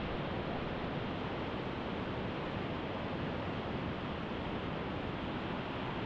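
Steady rush of whitewater river water.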